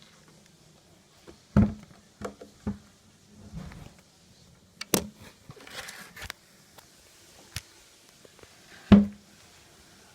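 Scattered knocks and thumps in a small room, about eight separate hits at uneven intervals, with the loudest one near the end.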